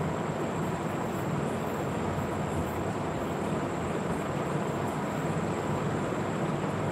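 Steady background noise of a hall through a public-address system: an even hiss and rumble with a faint high steady whine, no voice.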